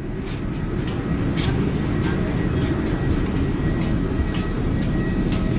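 Steady low rumble of a vehicle in motion, with scattered light clicks and rattles.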